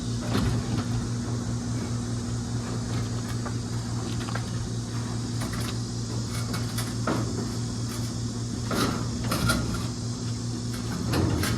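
A few scattered knocks and clunks from a heavy soda vending machine being lifted and shifted on its wheels, over a steady low hum.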